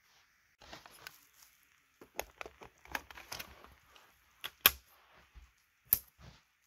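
Handling noise: fingers rubbing, pressing and tapping on the car's grey plastic VEX plates and parts, giving irregular clicks, rustles and small knocks. The sharpest knock comes about two-thirds of the way in, and another comes near the end.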